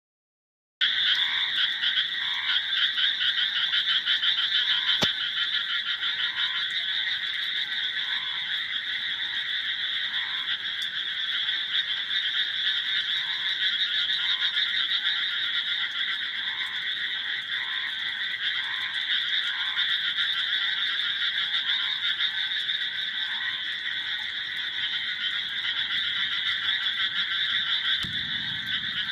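Dense chorus of many frogs calling steadily, with a lower croak repeating about once a second. It starts just under a second in.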